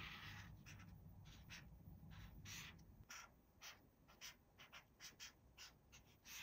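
Faint, irregular short rustles and taps, like small objects or packaging being handled, over a low hum that stops about three seconds in.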